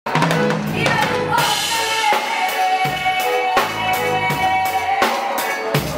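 Reggae band music with a drum kit beat, cymbals and snare hits over sustained keyboard or guitar lines.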